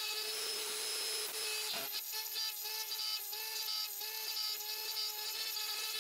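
Router spindle of a Genmitsu 3020-Pro Ultra CNC running with a steady whine while its end mill cuts into an aluminum plate. Irregular sharp ticks from the cut come and go through the middle of it.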